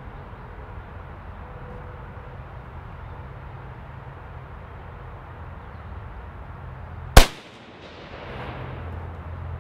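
A single shot from a Type 99 Arisaka rifle chambered in 7.7x58mm, fired once about seven seconds in. It is sharp and loud, with a fading echo trailing for about a second, over a steady low outdoor background.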